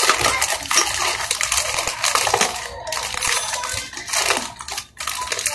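Thin plastic packaging crinkling and rustling as hands unwrap a gas regulator and hose, with a brief pause near the end.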